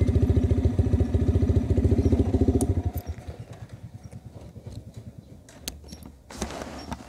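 Single-cylinder engine of a Cafe 150 motorcycle idling with an even putter, then dying away about three seconds in as it is shut off after parking. A few sharp clicks follow.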